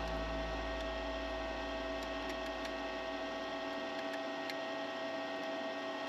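Steady electrical hum from a MIG welder, with a few faint ticks partway through. A deeper part of the hum fades away over the first few seconds.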